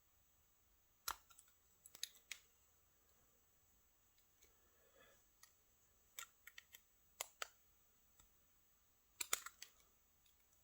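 Faint, scattered metallic clicks and scrapes of a tool working at the retaining clip of a Multi XL lock cylinder, trying to pry the clip off; the clicks come in small clusters a few seconds apart.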